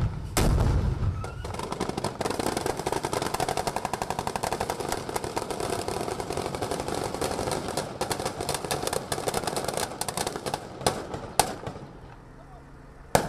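Sustained automatic gunfire from several weapons, a dense rapid crackle of shots that thins to scattered single shots toward the end. A heavy low boom comes right at the start.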